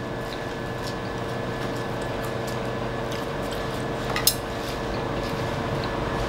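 Steady room hum with faint clinks of cutlery and crockery, and one sharp clink about four seconds in.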